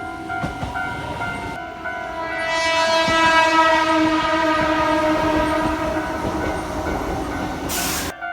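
Train horn held in one long blast of several steady tones sounding together, swelling to its loudest about three seconds in and cutting off abruptly near the end, over the clatter of wheels on rail joints.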